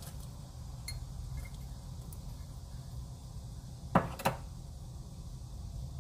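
Two quick clinks of a ceramic bowl against a hard surface about four seconds in, with a faint tick of food tipping into the pot earlier, over a steady low hum.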